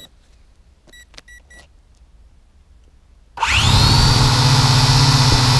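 A few short electronic beeps about a second in. Then, a little past the middle, the VISUO XS809HW quadcopter's motors spin up suddenly with a quick rising whine and settle into a loud, steady propeller buzz and hum while the drone sits on the ground.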